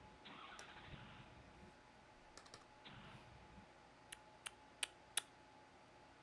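Four sharp clicks as the ignition key is turned on a 2011 Ford F-550 whose battery is dead; the engine does not crank. The clicks come over a span of about a second, with faint rustling before them.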